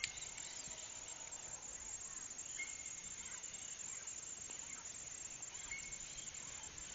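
Faint rural outdoor ambience: a steady low hiss of background noise, with two short, high, level calls about three seconds apart from an unseen animal.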